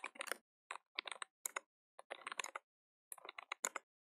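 Computer keyboard typing: faint, irregular keystroke clicks in quick runs separated by brief pauses.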